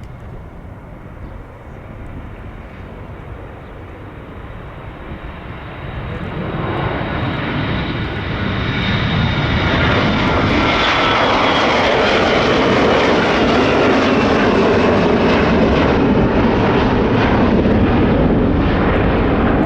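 Jet airliner engines growing louder over several seconds to a loud, steady rush as the aircraft passes close by, with a whine that falls in pitch.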